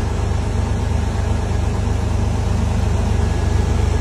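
Engine of a high-water rescue truck idling in floodwater, a steady low drone.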